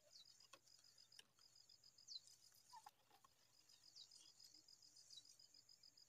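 Faint outdoor insect chorus: a high, fast, evenly pulsing cricket-like trill over a steady high hiss. A few short high notes falling in pitch, every second or two, come from a small bird calling.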